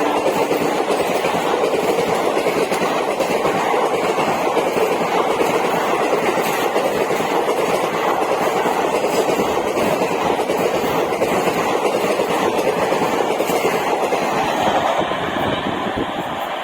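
Passenger train hauled by a WAP-7 electric locomotive running past, a steady loud rush and clatter of coach wheels on the rails that thins out near the end.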